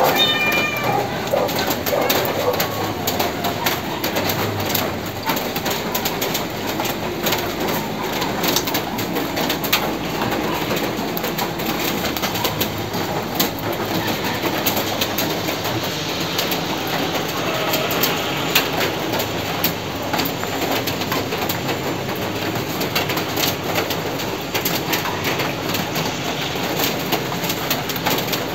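Steady heavy rain with fine dripping and pattering, a dense even hiss. A short bird call sounds right at the start.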